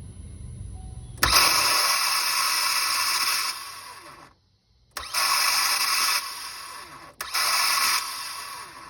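A 2009 Saturn Vue XR that won't crank: three tries at the key, each giving a sudden, loud, steady whirring noise lasting a second or three that then tails off, with no rhythm of the engine turning over.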